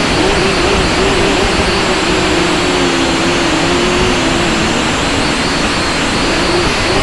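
Small camera drone's electric motors and propellers whirring loudly, heard up close from its onboard camera, with a steady rushing noise. The motor tone wavers and splits as the motors keep changing speed to fight gusty wind.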